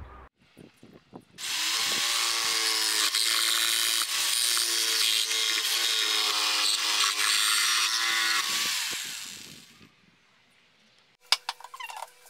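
Corded jigsaw with a T118A metal-cutting blade sawing through a window-screen frame profile. It starts about a second and a half in, runs steadily for about seven seconds, then winds down. A few light knocks come near the end.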